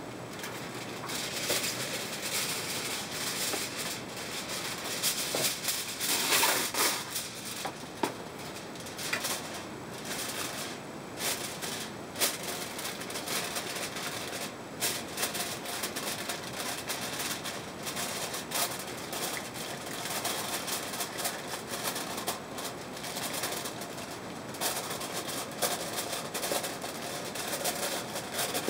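Aluminium foil crinkling and crackling as hands press and crimp a sheet over the rim of a bowl, an irregular run of small crackles that is loudest about six to seven seconds in.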